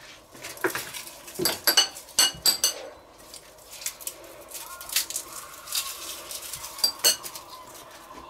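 A metal fork clinking and scraping against dishes as pressed garlic is scooped up: a quick run of sharp, ringing clinks about a second and a half in, then a few single clinks later.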